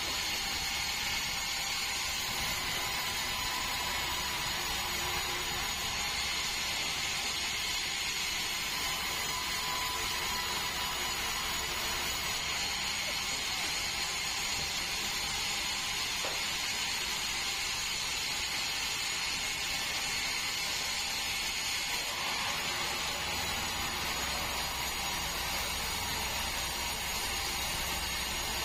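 Band sawmill running steadily, a continuous mechanical whine over machine noise; a deeper rumble joins near the end.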